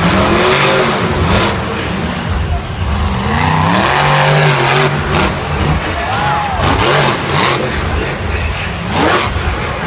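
Monster truck engines revving up and down, their pitch rising and falling again and again as the trucks drive over the dirt jumps.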